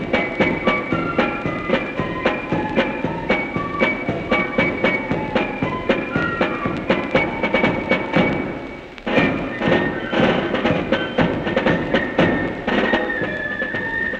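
Regimental corps of drums playing a march: side drums beating a dense, steady rhythm under a high wind-instrument melody. About nine seconds in the playing briefly drops away, then comes back in louder.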